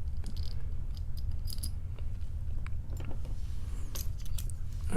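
Scattered light metallic clicks and taps from handling an opened padlock and its picking tools, over a steady low hum.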